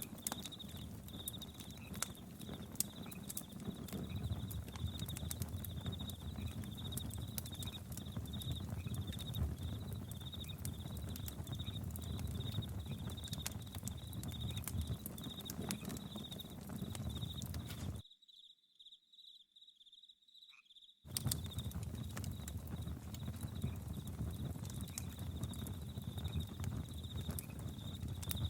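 Campfire crackling and popping in sharp clicks over a low rumble, with crickets chirping in an even, rapid pulse. About two-thirds of the way through, everything drops out to near silence for about three seconds, then returns.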